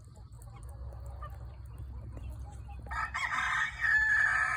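Chickens clucking quietly, then about three seconds in a rooster crows: one long, drawn-out crow that carries on past the end.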